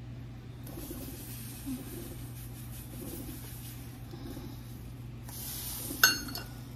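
Granulated sugar pouring from a paper bag into a stainless measuring cup, a steady grainy hiss. About six seconds in comes one sharp clink that rings briefly.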